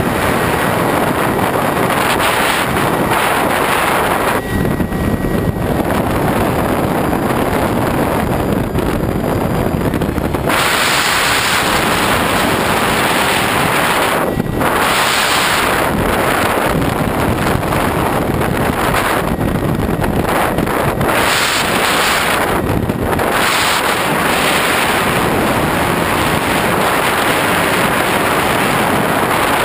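Heavy wind rushing over the camera microphone of a foam FPV model plane in flight, mixed with the steady run of its electric motor and propeller. The high hiss thins out for several seconds about five seconds in, and briefly several more times later.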